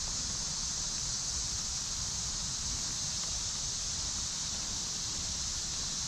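Steady high-pitched drone of a summer insect chorus, unchanging throughout, over a low rumble of wind on the microphone.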